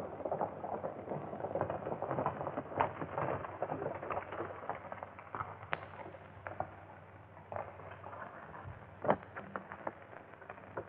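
Hoofbeats of several galloping horses, a dense irregular clatter that thins out after about five seconds. A single sharp crack comes near the end. All of it sits over the hiss of an old narrow-band film soundtrack.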